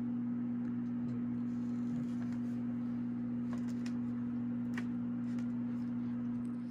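Old microwave oven running: a steady electrical hum, with a few faint light ticks over it.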